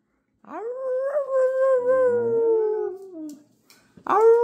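Husky howling: one long howl that rises at the start, holds steady and trails off after about three seconds, then a second howl begins near the end. A lower voice slides downward beneath the first howl partway through.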